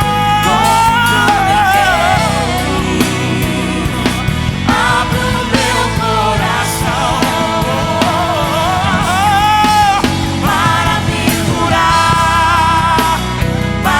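Live gospel band playing with a rock feel: a lead melody that wavers with vibrato over bass and drums, in a passage without lyrics.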